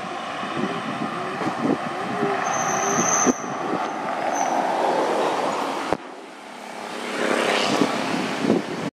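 Steady road-traffic noise, swelling as a vehicle passes near the end.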